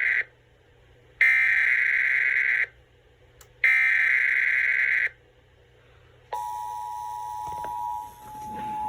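Emergency Alert System test tones over a radio broadcast. First come the SAME header data bursts: a short tail of one, then two more raspy digital bursts of about a second and a half each, with silent gaps between. About six seconds in, the steady two-tone EAS attention signal begins.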